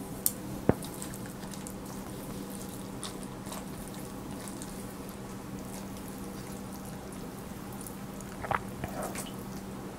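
Mostly a steady low electrical hum, broken by two sharp utensil clicks in the first second and a brief soft eating noise about eight and a half seconds in.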